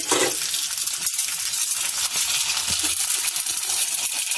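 Elai vadam frying in smoking-hot coconut oil in a kadai: a hard, crackling sizzle that starts suddenly as it goes into the oil and then holds steady.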